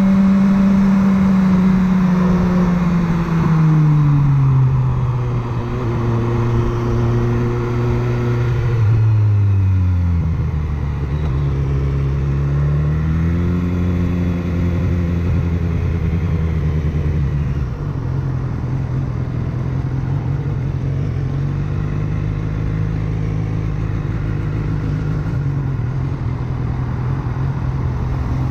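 BMW S1000R's inline-four engine running under way, its pitch rising and falling with throttle and gear changes. In the second half it settles to a steadier, lower note.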